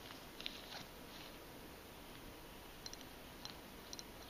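Gloved fingers handling a small Swiss Bucherer alarm watch: a soft rustle and a couple of light taps about half a second in, then scattered faint, high, irregular clicks in the last second and a half as the fingers work at the crown.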